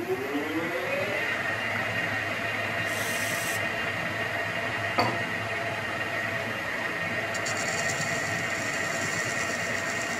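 Metal lathe facing off the end of a large rusty metal bar: the spindle's whine rises as it comes up to speed at the start, then the tool gives a steady scraping cut with a thin high ring. A single sharp click about halfway through.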